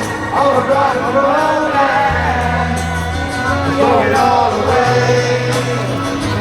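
Rock band playing live with sung vocals over held bass notes that change every second or two.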